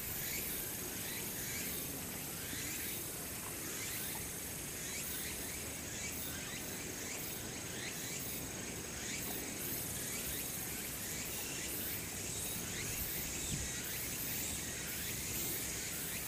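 Outdoor ambience: a steady, high-pitched insect chorus of many short, repeated chirps over constant background noise.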